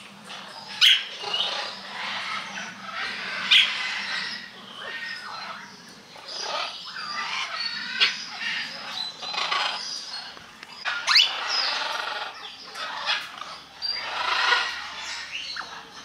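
Many birds calling at once in a continuous chatter, with a loud, sharp, rising call every few seconds.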